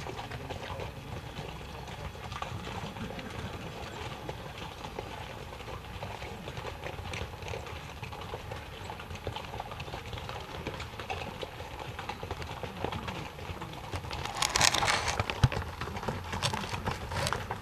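Hooves of a string of pack mules clopping and scraping on a rocky trail, scattered steps that get louder near the end as the string comes closer.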